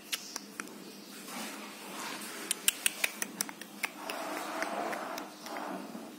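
A quick run of sharp clicks and taps, then a rustling scuffle: kittens playing and scrambling on a towel-draped chair.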